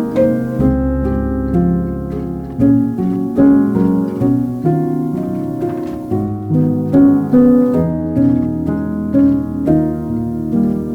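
Calm instrumental background music: plucked, harp-like and piano notes over a sustained low bass.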